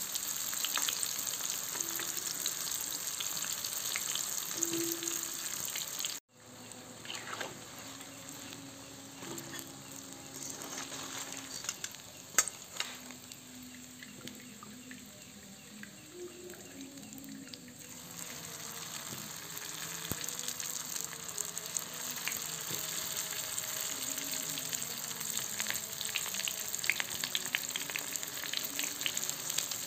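Hot oil sizzling as banana-filled spring-roll wrappers deep-fry in a wok. The sizzle drops abruptly about six seconds in and stays quieter while fried rolls are lifted out, with one sharp tap midway. It builds again over the last third as fresh rolls go into the oil.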